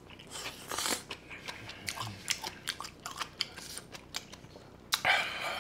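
Close-miked chewing of a mouthful of kimchi bulgogi fried rice: a run of small wet clicks and crunches, with a louder rush of noise about five seconds in.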